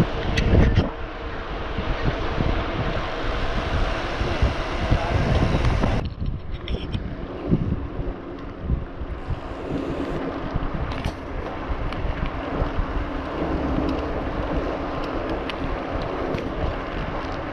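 Wind buffeting the microphone of a handlebar-mounted camera on a moving bicycle. About six seconds in the noise changes abruptly and turns duller and a little quieter.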